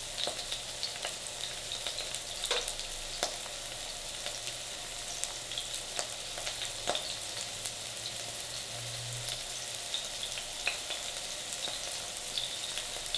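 Poplar fieldcap mushroom caps frying in hot cooking oil in a pan: a steady sizzle with scattered crackling pops.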